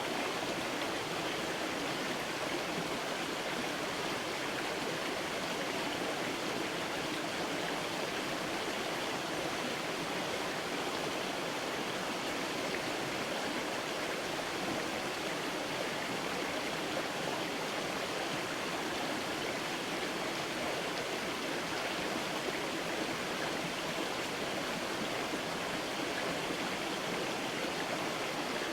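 A creek flowing steadily, an even rushing and babbling of water.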